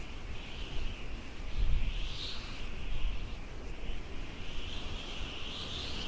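Outdoor field ambience: wind buffeting the microphone in uneven low rumbling gusts, over a steady, wavering high-pitched hiss.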